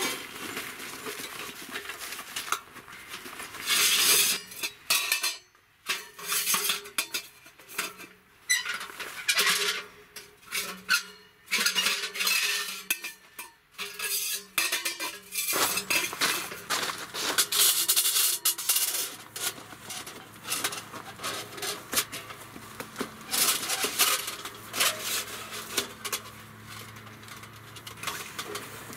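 Metal parts of a G-Stove Heat View wood stove and its chimney pipe sections clinking and clanking as they are unpacked, handled and fitted together. The sound is an irregular run of short, sharp metal knocks and clinks.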